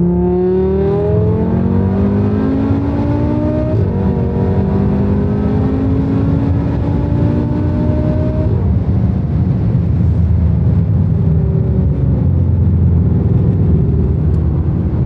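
Five-cylinder turbo engine of a tuned VW Golf 7 R, over 700 PS, heard from inside the cabin at full throttle, its note rising through the gears. There are upshifts about four seconds in and again after about eight seconds, and then the engine note falls away under steady wind and tyre noise at over 200 km/h.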